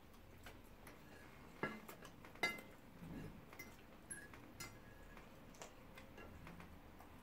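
A metal fork clinking and scraping against a ceramic plate while eating, in sparse faint ticks. Two sharper clinks come about a second apart early on.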